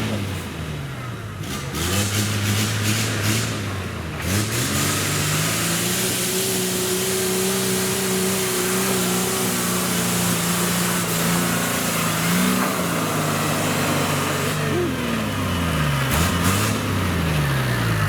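Toyota Land Cruiser's engine revving hard off-road in mud: the revs dip and rise in the first few seconds, are held high for several seconds in the middle, then drop and climb again near the end.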